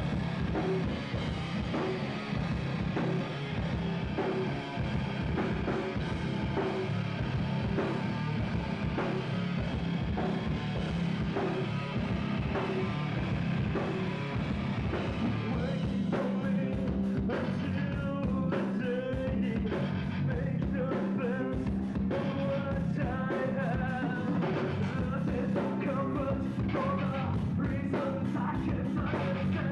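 Rock band playing live: loud, dense drum kit and band with singing. The drum hits and vocals come through more clearly from about halfway in.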